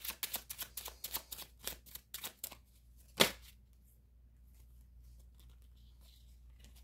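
A deck of cards being shuffled, a rapid run of flicking for about two and a half seconds, then one sharp knock a little after three seconds in.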